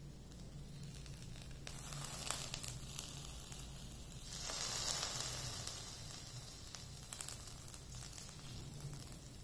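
Hot pan of bread upma sizzling as lemon juice is squeezed in by hand. The hiss swells about two seconds in and again in the middle.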